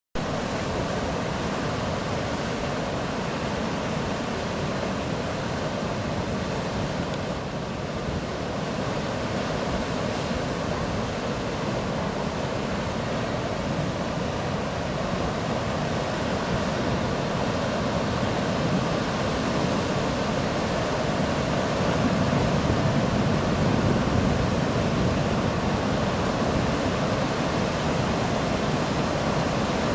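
Heavy ocean surf breaking in rows of whitewater: a steady wash of noise with no pauses, growing a little louder in the second half.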